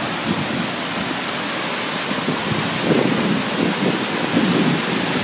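Bridal Veil Falls pouring over in spring flood: a steady, dense rush of falling water. An uneven low rumble swells in from about three seconds in.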